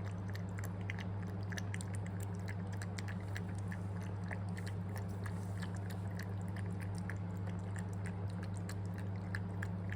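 Steady low electrical hum with a stream of small irregular clicks, several a second.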